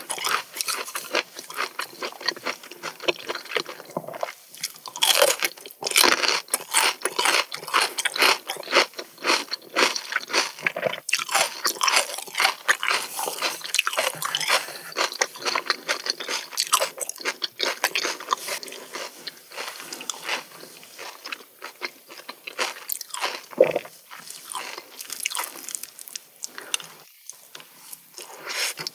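Close-miked chewing of raw seafood: a dense, steady run of quick mouth clicks and smacks.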